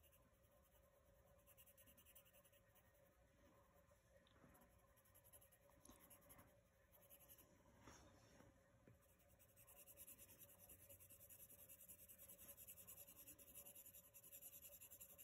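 Faint scratching of a wooden pencil shading on paper with the chiseled edge of its lead. There are a few scattered strokes at first, then a steady, rapid stroking from about ten seconds in.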